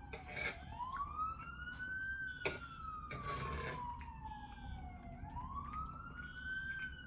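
An emergency vehicle siren wailing, its pitch rising quickly and then falling slowly in a cycle of about five seconds. There are a few sharp clicks, one standing out about two and a half seconds in.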